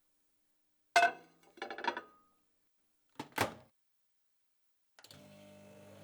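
Microwave oven being worked: a couple of sharp clunks and a rattle of door and control clicks, then about five seconds in the oven starts running with a steady low electrical hum.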